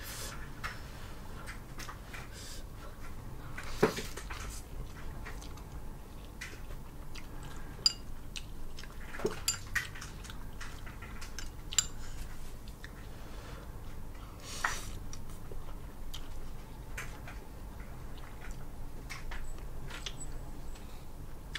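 A person eating noodles from a small bowl with chopsticks: scattered clicks of the chopsticks against the bowl, a few louder sharp clinks, and eating sounds.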